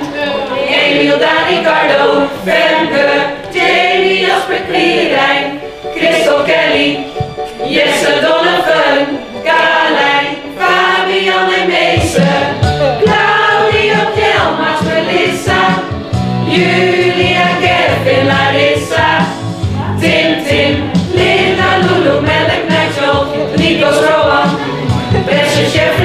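A mixed group of men and women singing a song together, choir-style. The low range fills out about halfway through.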